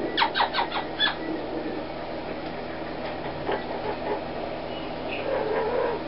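Double yellow-headed Amazon parrot giving a quick run of about five short, sharp squawks in the first second, then falling quiet over a steady background noise.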